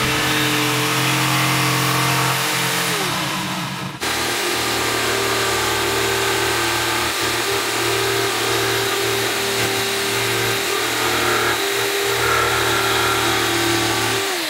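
Electric jigsaw running and cutting through a thin wooden board: a steady motor whine over the rasp of the reciprocating blade. It breaks off briefly about four seconds in, then runs on and stops near the end.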